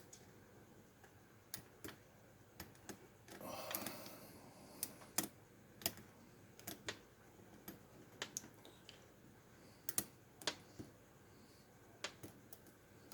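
Faint, irregular small metal clicks of a lock pick working the serrated pin stacks of a Schlage cylinder under tension, with a brief soft rush of noise about three and a half seconds in.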